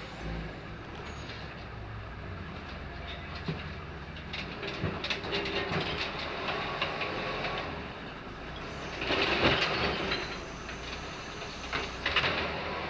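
Garbage truck's diesel engine running as it creeps up the street, with the body and gear rattling and clanking. There is a louder burst of clattering noise about nine seconds in and another near the end.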